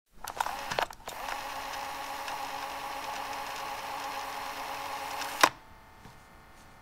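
Mechanical whirring sound effect: a few clicks, then a steady whir with a faint hum, cut off by one sharp click about five and a half seconds in.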